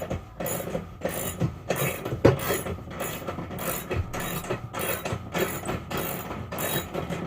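Socket ratchet wrench clicking in quick repeated strokes, about two or three a second, as a bed-frame bolt is backed out.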